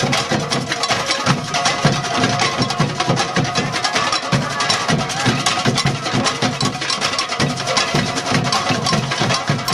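Live percussion music: drums beat a steady rhythm about twice a second under fast, clattering wood-block-like strikes.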